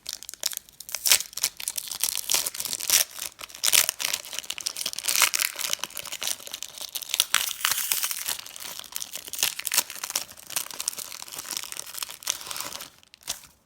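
A Pokémon trading card booster pack wrapper crinkling and being torn open by hand: dense, irregular crackling that stops shortly before the end.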